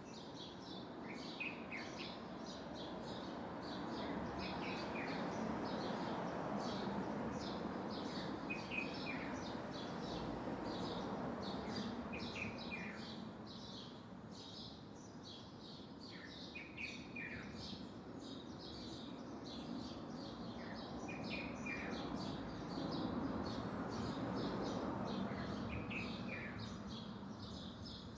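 A songbird known in Yemen as the 'awjari' repeats a short phrase of a few quick falling notes about every four seconds, over dense high chirping and a steady low background rumble.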